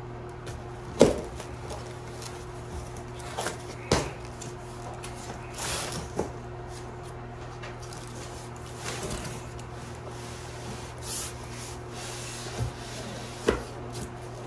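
Cardboard box being opened and handled: sharp knocks of the box against the bench and rustling, scraping cardboard as the flaps are pulled and the foam-wrapped inner box is slid out near the end. A steady low hum runs underneath.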